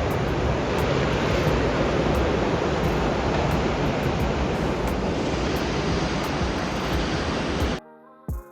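Ocean surf rolling onto a beach, a steady dense wash of waves that cuts off suddenly near the end.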